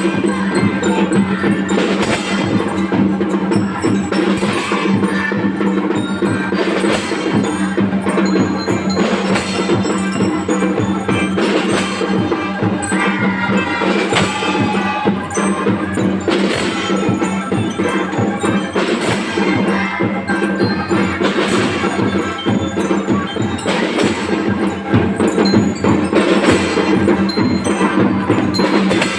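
Drum band playing: drums beating a steady rhythm, strong beats about once a second, under a melody.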